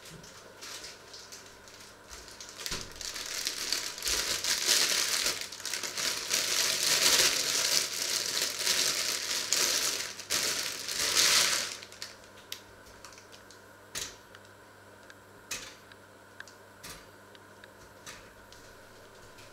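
Plastic bag crinkling and rustling loudly for about ten seconds, like a bread bag being opened and handled. After it stops, a few sharp clicks follow at intervals of a second or two.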